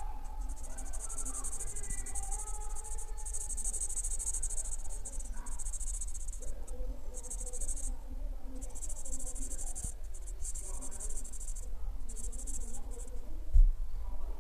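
Felt-tip marker nib rubbing and squeaking on paper in repeated colouring strokes, a high scratchy hiss that starts and stops as the strokes come and pause. A single thump near the end.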